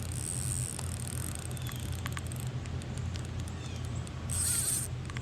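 Rain pattering steadily, over a steady low hum, with a few faint clicks and a short hiss about four and a half seconds in.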